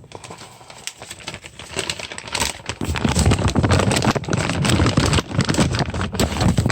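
Dense, irregular clattering and rustling of things being handled, full of sharp clicks, growing louder about two seconds in.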